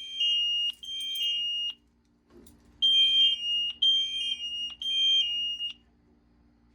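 Fire alarm horns sounding a drill alarm in groups of three blasts with a short pause between groups, each blast stepping down slightly in pitch. The alarm cuts off near the end.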